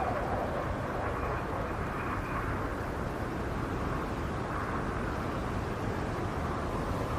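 Howling snowstorm wind: a steady rush with a moaning tone that swells and fades, strongest about four to five seconds in.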